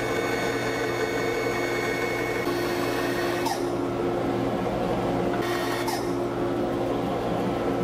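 Bandsaw running, its blade cutting through a figured cherry board: a steady hum with a high whine, and brief harsher bursts about three and a half seconds in and again near six seconds.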